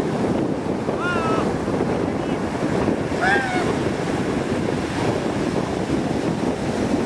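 Ocean surf breaking and washing over the shallows, with wind buffeting the microphone. Two brief high-pitched cries rise above it, about a second and about three seconds in.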